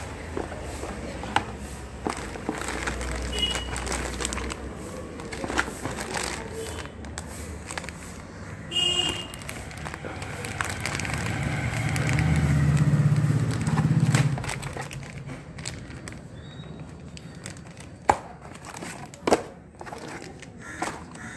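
Clear plastic zip-lock bags of parts and a cardboard box being handled, with irregular crinkling, rustling and clicking. A low rumble swells and fades about halfway through.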